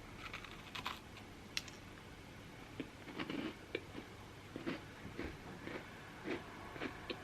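Someone biting into and chewing a homemade cookie: faint, irregular crunches.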